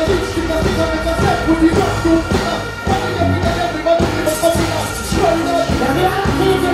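Dancehall music over a loud stage PA: a vocalist chanting into a microphone over a backing riddim with heavy bass and a steady drum beat.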